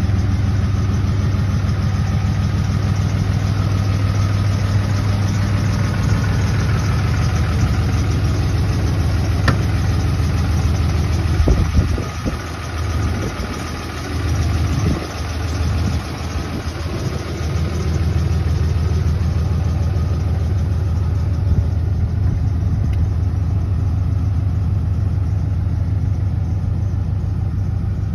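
Dodge Ram 3500's Cummins 6.7-litre inline-six turbo diesel idling steadily, with a brief dip and muffled patch about halfway through.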